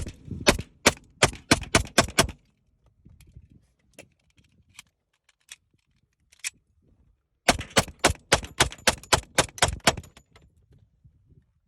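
Rock Island Armory FS 1911 .45 ACP pistol fired in a quick string of shots, then a pause of about five seconds with a few faint pops, then a second fast string of shots.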